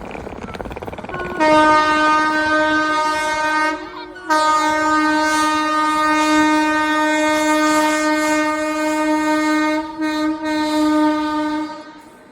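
Train horn blown in two long, loud, steady blasts: a short one starting about a second and a half in, then after a brief break a second one lasting about seven seconds. Rumbling train noise comes before the first blast.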